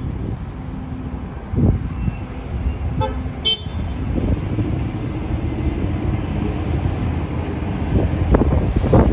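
A Green Line light-rail trolley gives a short horn toot about three and a half seconds in. The low running rumble of a trolley then grows louder as it approaches the station.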